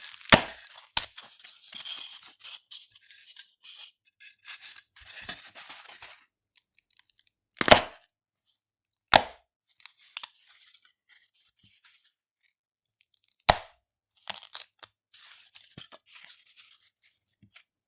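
Polystyrene foam being rubbed and broken: dense crackling rubbing for the first six seconds or so, then sparse crackles between a few sharp, loud snaps of the foam breaking, the loudest about eight seconds in.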